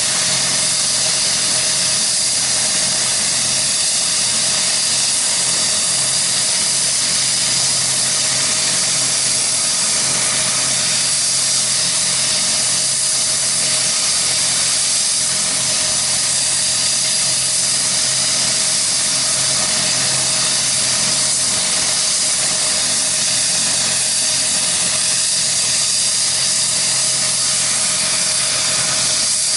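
Kazan Ansat helicopter's twin turboshaft engines running on the ground with the main rotor turning: a steady turbine whine over hiss, with no change in pitch or level.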